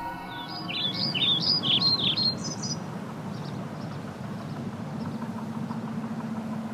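A songbird singing a quick run of high, rising-and-falling chirps for about two seconds, then only steady outdoor background noise with a low hum.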